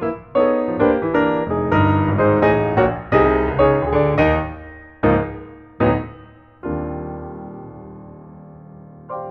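Background piano music: a quick run of notes, then two single chords and a final held chord that slowly fades away.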